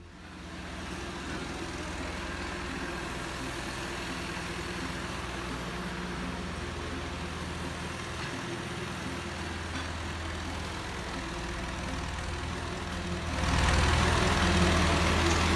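Farm tractor engine idling steadily, growing noticeably louder near the end.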